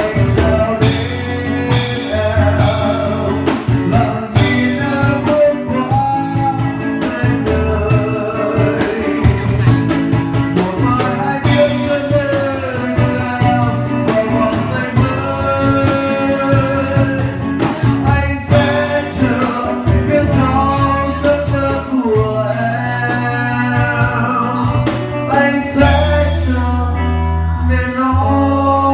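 Live acoustic band music: a man singing into a microphone, backed by acoustic guitar and cajón.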